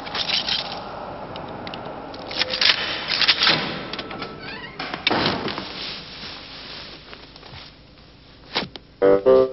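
A wooden door being handled and opened: a series of knocks and clunks over a light hiss. Piano music starts near the end.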